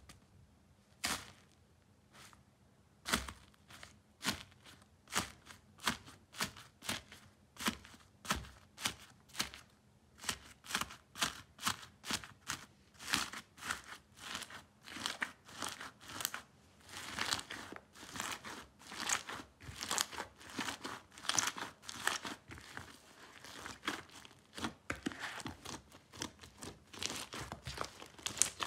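Foam-bead slime being pressed and squished by hand, giving crackling, crunchy pops of the beads with each press, at first about one and a half presses a second. About halfway through the crackling grows denser and fuller as the slime is kneaded and folded.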